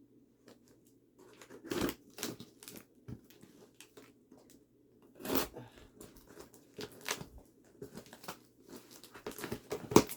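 A box being cut open with the pointed end of a nail clipper: irregular scratching and ripping strokes with rustling in between.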